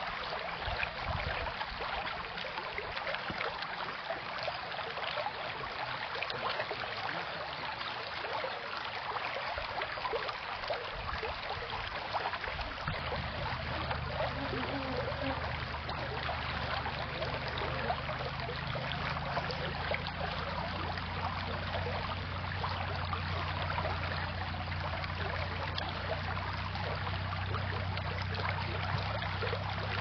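Shallow creek running steadily over a pebble bed, a continuous babble of flowing water.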